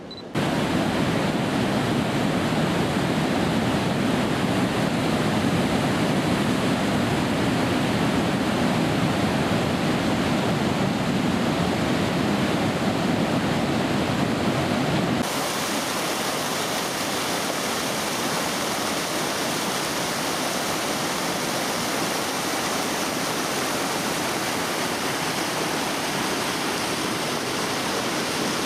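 Steady, unbroken rush of flowing water. About halfway through it changes abruptly to a thinner, hissier rush.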